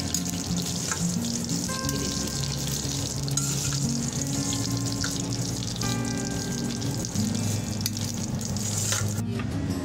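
Vermicelli roasting in desi ghee in a steel pan, a steady sizzle as it is stirred and turned, that cuts off suddenly near the end. Background music with held notes plays underneath.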